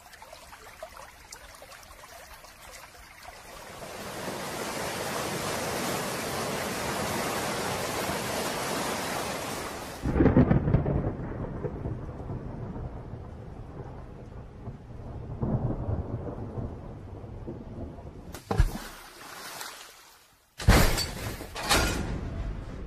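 Thunderstorm: rain hiss swells in, then a loud thunder rumble breaks about ten seconds in and a second one follows a few seconds later. Near the end come several sharp, sudden bangs.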